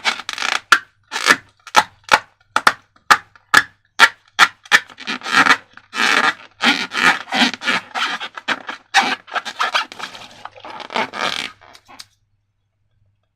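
Rapid scraping and rubbing strokes of slime-making materials being worked, about two to three strokes a second, some drawn out longer, stopping suddenly near the end.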